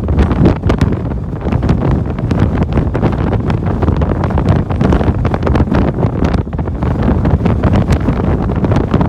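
Strong wind buffeting the microphone, a loud, gusty low rumble with crackling.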